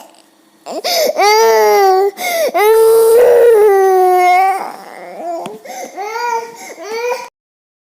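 A young child crying: several loud, drawn-out wails that fall in pitch at their ends, then shorter, quieter sobs, cutting off suddenly near the end.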